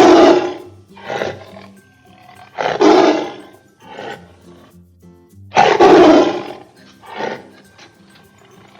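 Tiger roaring: three loud roars about three seconds apart, each followed by a shorter, weaker one, over background music.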